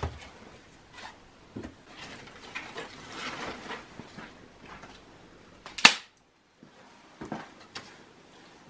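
Sticks of firewood knocking and clattering as they are handled and dropped into a clay tandoor oven, with one sharp, loud knock a little past the middle.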